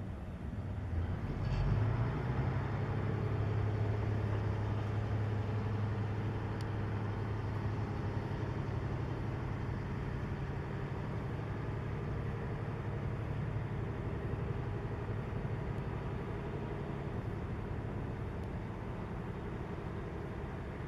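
An inland cargo ship's diesel engine running as the ship passes: a low, steady drone that swells about two seconds in and then slowly fades.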